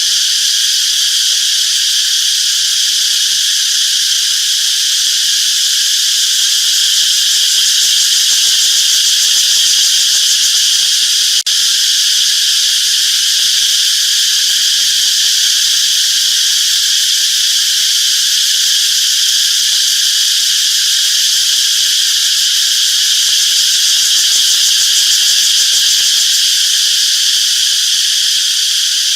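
Cicadas singing in a steady, loud, continuous chorus of high buzzing, with one split-second dropout about eleven seconds in.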